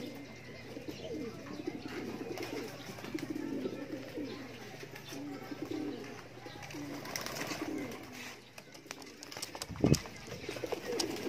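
Racing pigeons cooing, many low rolling coos overlapping one another, with a single sharp thump near the end.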